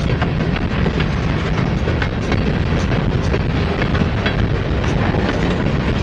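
Freight train cars rolling past: a steady, loud rumble of wheels on rail with frequent sharp clicks and clanks.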